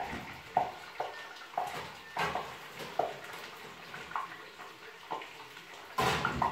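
Light clinks and knocks of a glass baking dish and metal oven rack as the dish is slid out of an oven with oven mitts, each with a short ring, about one to two a second, then a louder clatter about six seconds in.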